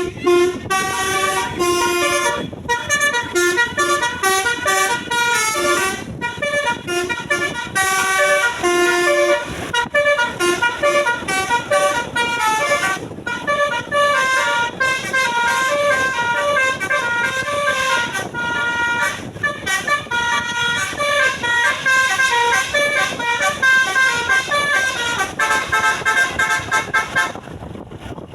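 Tour bus telolet horn, a multi-tone musical air horn, playing a fast tune of quick stepped notes. It ends on a held chord near the end and then cuts off.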